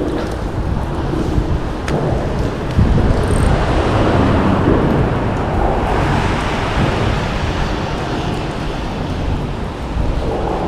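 Wind buffeting the microphone while rain falls, a steady rushing rumble with no pauses.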